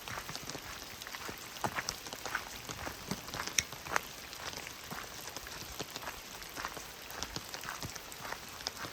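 Rain: many separate drops tapping irregularly close by, over a steady hiss of rainfall.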